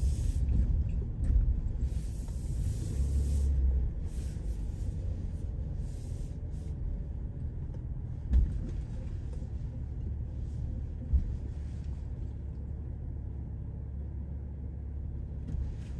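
Low rumble of a car moving slowly on a wet day, heard inside the cabin, with a hiss over it during the first four seconds. Two short thumps come about eight and eleven seconds in.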